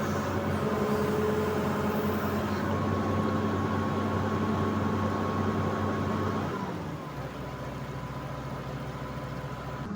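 Excavator's diesel engine running steadily, then dropping to a lower speed and quieter about two-thirds of the way through.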